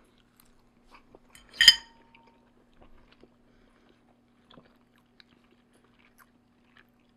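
Quiet chewing of a mouthful of omelet, with faint scattered mouth clicks. About a second and a half in, a single sharp clink of a metal fork on a ceramic plate that rings briefly.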